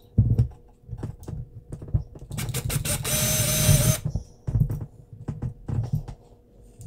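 Light clicks and taps of a small die-cast metal model being handled. About three seconds in, a small electric drill whirs for about a second, drilling into the metal casting to make a hole for a screw.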